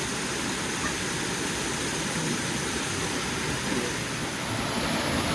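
Small waterfall pouring into a spring-fed swimming hole: a steady, even rush of water.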